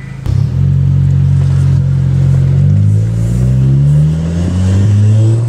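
Audi B8 A4's turbocharged engine, fitted with a new ECS pod-filter intake, pulling away and accelerating, heard from inside the cabin. The engine note is steady at first, then rises in pitch from about halfway, dips briefly about four seconds in, and rises again.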